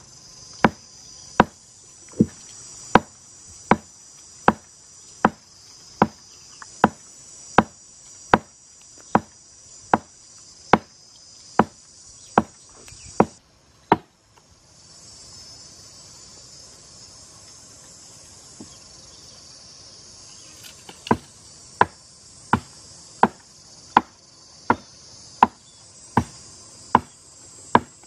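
Blade chopping into wood up in a tree: sharp, evenly spaced strokes about one every 0.8 seconds, stopping about halfway through and starting again for the last quarter. A steady high-pitched insect drone runs underneath.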